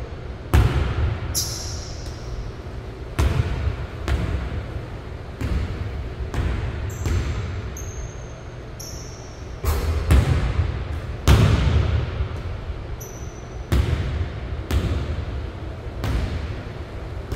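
Basketball bouncing on a hardwood gym floor: about a dozen thuds at uneven intervals, each echoing through the large hall. Now and then there are short high squeaks.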